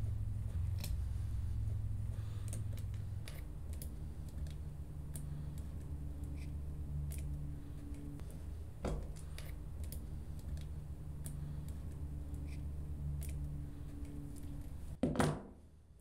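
Phillips screwdriver working the small terminal screws of a trolling-motor foot pedal's micro switch to free its wires: scattered light metallic clicks and scrapes over a steady low hum, with louder knocks about nine and fifteen seconds in.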